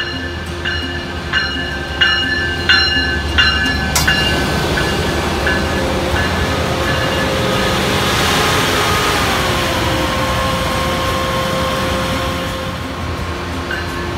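Siemens SC-44 Charger diesel-electric locomotive pulling a passenger train in and passing close by. Its engine and wheels build to a loud rush about halfway through, with a tone that slides down in pitch as it goes by, then ease off as the train slows to a stop. A bell rings steadily about every two-thirds of a second over the first few seconds and faintly again near the end.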